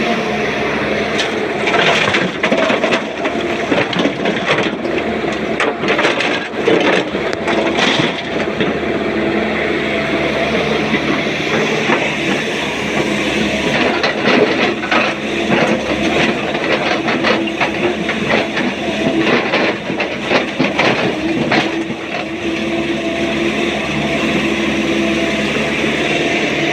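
SANY excavator's diesel engine running steadily under load, with a dense clatter of knocks from rock being loaded into a tipper truck's steel bed in two spells, the first starting about a second and a half in and the second around the middle.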